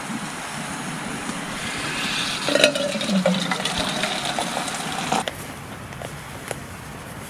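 Hot water poured from an enamel kettle into a tin can, hissing and splashing, with a short steady ringing tone as the can fills. It cuts off suddenly about five seconds in, followed by a few faint clicks of a manual can opener working around the rim of a can.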